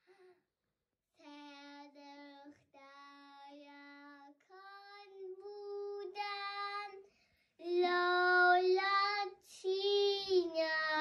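Girls singing a Tajik song with no instruments, in long held notes. The first phrases are soft; from about two-thirds of the way through the singing gets much louder and higher.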